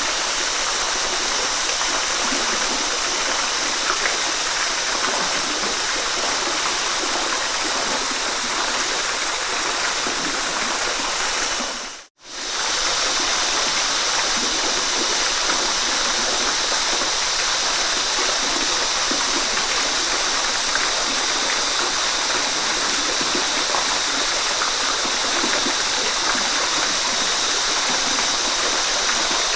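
Waterfall: a steady rush of falling water. It fades out for a moment about twelve seconds in, then comes straight back.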